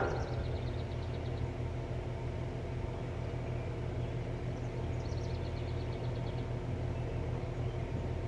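Carrier air conditioner's outdoor unit running: a steady low hum from the compressor and condenser fan. A high, rapid trill of short notes sounds twice, near the start and about five seconds in.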